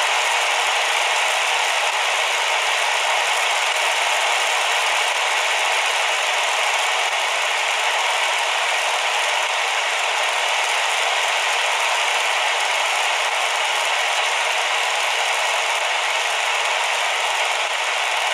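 Steady shortwave static hissing from a QFX R-39 portable radio's speaker as it is tuned slowly across a band with no stations coming in.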